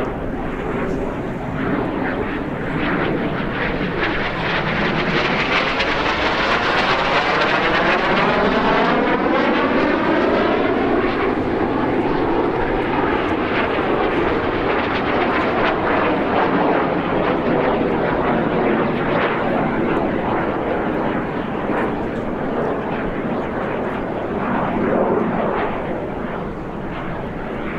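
CT-114 Tutor jet's single turbojet engine passing overhead in a steep climb. It is a loud, steady jet whoosh that swells about a third of the way in, and its tone sweeps down and back up through the middle before easing off near the end.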